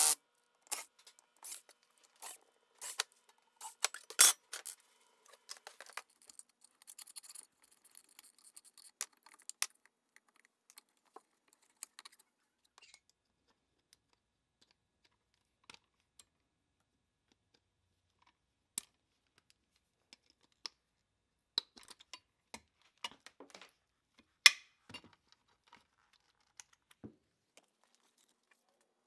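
Hand tools and metal parts of an old electric motor being handled on a workbench: scattered clicks, taps and light scraping as a screwdriver works inside the motor's capacitor box, with two sharper knocks about four seconds in and again near twenty-five seconds.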